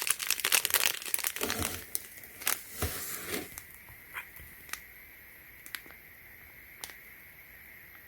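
Packaging crinkling and rustling as items are handled and unwrapped, dense for the first few seconds and then dying down to a few light ticks and taps.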